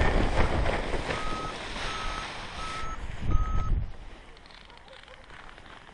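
A paragliding variometer beeps four times at one steady pitch, evenly spaced, over wind rushing on the microphone. The wind noise dies away as the glider comes down to land.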